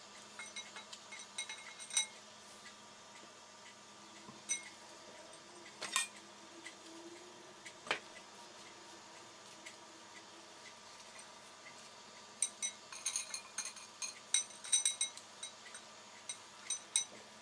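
Light clinking of metal bangle bracelets on a wrist while the hands stuff boiled eggplants with chopped salad over glass bowls. A few single clinks, then a quick run of them in the last few seconds.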